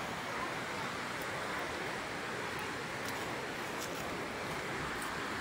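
Steady rushing noise of wind.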